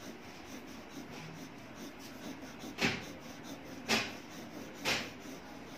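Graphite pencil scratching on drawing paper while shading hair: light scratching at first, then three louder strokes about a second apart starting around three seconds in.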